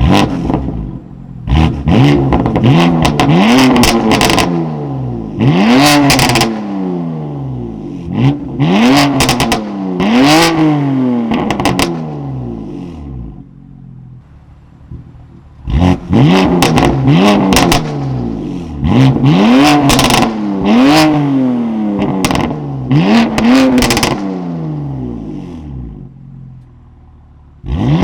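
BMW S55 twin-turbo straight-six in an F80 M3 through a titanium equal-length, single-midpipe valved catback, accelerating hard twice. In each run the engine note climbs in pitch through a gear, drops sharply at each quick upshift and climbs again, five or six times, then falls away when the throttle is lifted.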